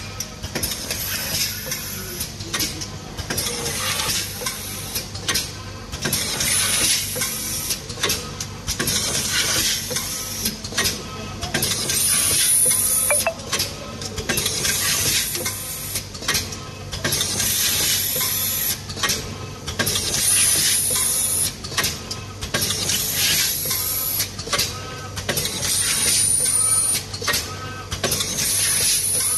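Automatic seed packing machine running through its cycle, its pneumatic cylinders hissing air in repeated bursts, roughly once a second, over a steady machine hum.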